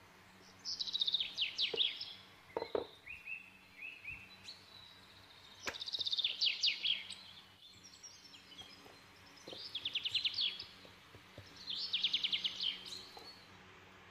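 A bird singing: four phrases of quick, repeated chirping trills, each lasting about a second, with a few soft knocks in between.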